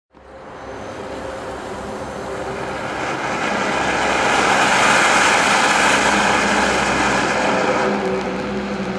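Small 23 mm silver-spark ground fountain burning: a steady rushing hiss of sparks that starts suddenly, builds to its loudest about halfway through and eases slightly near the end.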